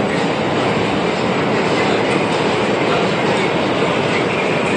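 New York City subway train running, heard from inside the car: loud, steady noise of the train moving on the rails, with a faint high tone coming and going.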